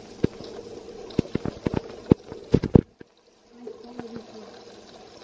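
Spatula knocking and scraping against a frying pan while stirring a thick tomato and onion sauce, a quick series of sharp knocks over a sizzling hiss. It cuts off abruptly about three seconds in.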